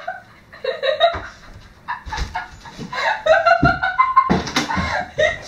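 Wordless vocal cries and groans from someone who has just taken a sip of a foul, chili-laced prank drink, with a few thumps of movement.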